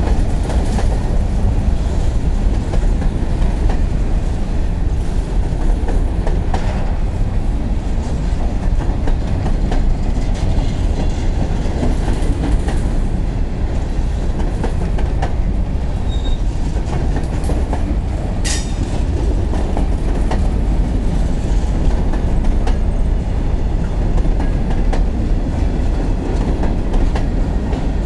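Freight train of covered hopper cars rolling past at close range: a steady, loud rumble of steel wheels on rail with clickety-clack over the rail joints. A brief sharp high-pitched sound cuts in about eighteen seconds in.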